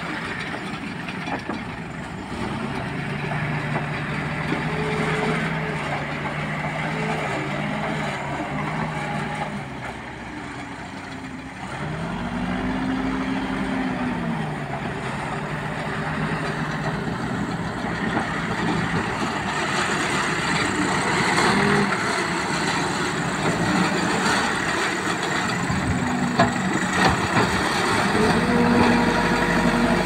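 Diesel engine of a backhoe loader running and revving up and down repeatedly as it scoops, carries and dumps earth, with other earthmoving machines running in the background.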